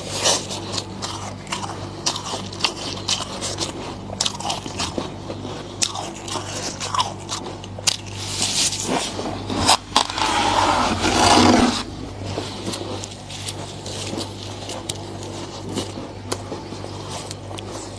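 Thick freezer frost being scraped off and crunched: a run of short, sharp crunches and scrapes, with a longer, louder scrape from about ten to twelve seconds in. A steady low hum runs underneath.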